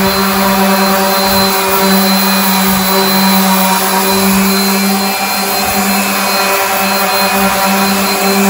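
Small electric random orbital sander running loud and steady with a 100-grit disc, scuff-sanding laminate cabinet doors: an even motor hum with a steady hiss of sandpaper on the surface.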